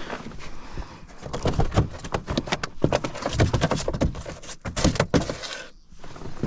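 A small bass thrashing while it is handled: a dense run of quick slaps, knocks and rattles for several seconds, stopping shortly before the end.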